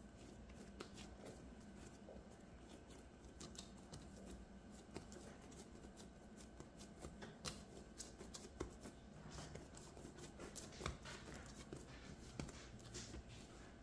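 Faint, soft handling sounds of hands rolling and pressing bread dough into a log on a granite countertop, with scattered light clicks and taps, one sharper tap about halfway through.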